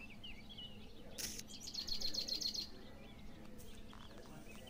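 Small birds chirping, with a fast trill of repeated high notes lasting about a second and a half, starting just over a second in.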